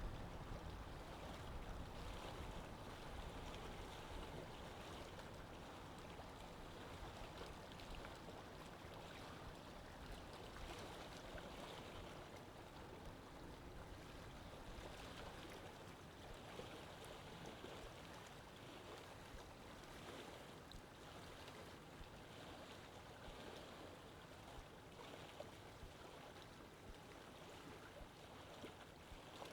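Faint, steady rushing noise with no clear tone or rhythm, slowly getting quieter.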